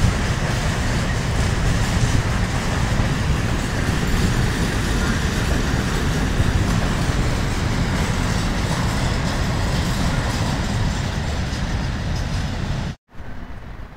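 Freight train of open-top wagons passing: a steady noise of wagon wheels running on the rails. It cuts off abruptly about a second before the end.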